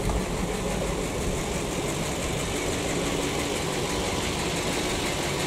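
PAZ-672 bus's V8 engine idling steadily, warmed to nearly 80 degrees, with a light valve tick that the owner puts down to a valve clearance set slightly off.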